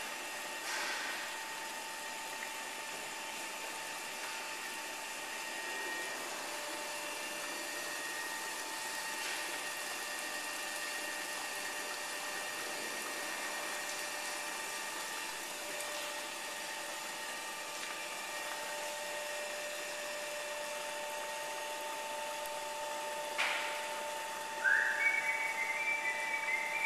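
Steady hum and hiss of brewhouse machinery with a few thin steady tones, during the last of the lauter runoff into the grant. Near the end comes a single knock, then a short high whistle of a few rising notes.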